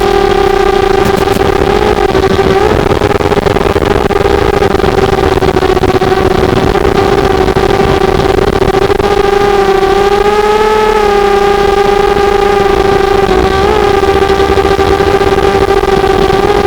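Small FPV quadcopter's four brushless motors and propellers whining steadily in flight, the pitch holding nearly level and dipping and swelling slightly with throttle changes about two-thirds of the way through.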